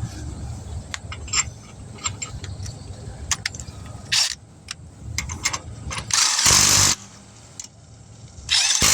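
Impact wrench run in short bursts on the wheel's lug nuts: a brief burst about four seconds in, then two longer ones near the end, with light metal clicks in between.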